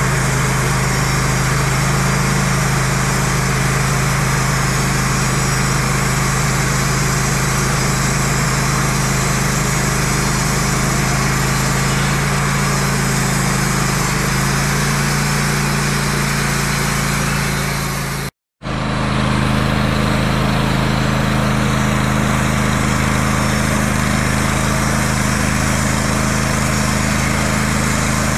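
Wood-Mizer band sawmill with its engine running steadily. The sound drops out completely for a split second about eighteen seconds in, then carries on at a slightly different pitch.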